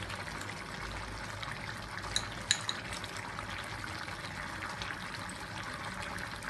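Chicken curry simmering in an iron kadai: a steady bubbling sizzle, with a few sharp pops a little over two seconds in.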